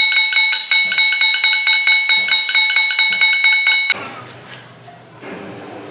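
Fast metallic striking, about five blows a second, on a ringing steel part. It stops about four seconds in, leaving a low machine hum.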